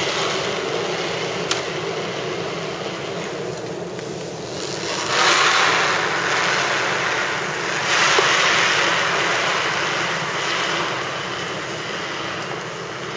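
A granite curling stone and the curler's slider gliding over the ice, a steady rushing rumble that swells about five seconds in and again about eight seconds in.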